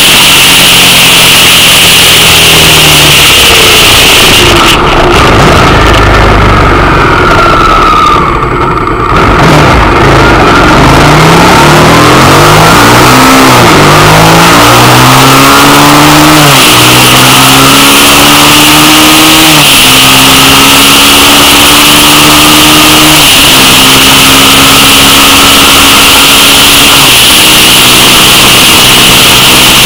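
Suzuki SV650's V-twin engine, heard from a handlebar-mounted camera. The engine note falls away as the bike slows. From about ten seconds in it climbs again as the bike accelerates up through the gears, with the pitch dropping back at each upshift, the later gears held about three to four seconds apiece.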